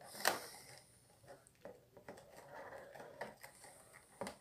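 Handling of a shaver's packaging insert while working the shaver free: a sharp click about a quarter second in, then faint scattered taps and rustling, and another click near the end.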